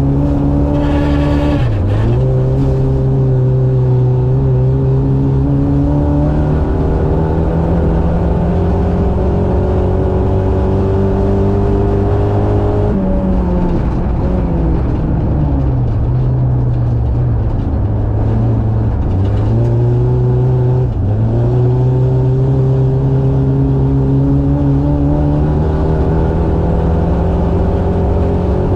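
Race buggy's Suzuki GSX-R 600 motorcycle engine running hard at high revs, its pitch slowly climbing, then dropping sharply as the throttle comes off about halfway through and twice more later before climbing again.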